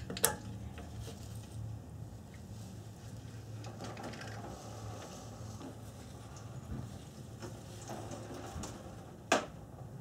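Quiet handling of metal engine parts as the oil filter housing of a Toyota 1GR-FE V6 is worked loose and lifted off: faint scattered clinks and taps over a low steady hum, with a sharp click just after the start and a louder knock about nine seconds in.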